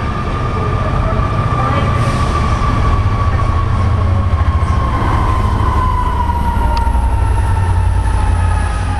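Train running through a station, with a heavy low rumble and a whine that slowly falls in pitch.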